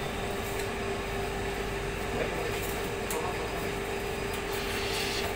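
Steady mechanical hum of a butcher shop's machinery, holding one constant mid-pitched tone, with a few faint taps of a knife working pork on a cutting board.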